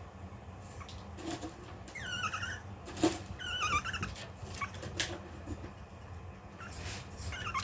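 Long-coat Chihuahua puppy whining: short high-pitched whimpers, two clear ones a couple of seconds in and another near the end, let out while she holds herself back waiting for food. A few sharp clicks or taps come between them, the loudest about 3 seconds in.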